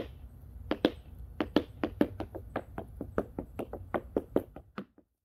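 Tap shoes' metal taps striking a thin wooden board: a quick, uneven run of sharp clicks, about five a second, that stops abruptly near the end.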